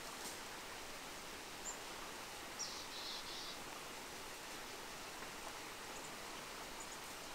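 Faint, steady outdoor background noise with a few short, high bird chirps, one a little under two seconds in and a brief cluster around three seconds in.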